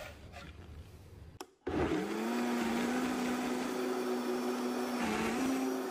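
Countertop blender switched on with a click about a second and a half in, its motor spinning up quickly to a steady hum, pitch stepping up slightly near the end, as it purees a thick load of soaked dried chiles in broth.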